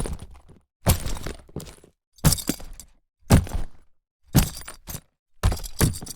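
Leather bag being handled: a series of short, separate leather handling sounds, each a sharp knock or creak that trails off in under a second, coming about once a second with silence between.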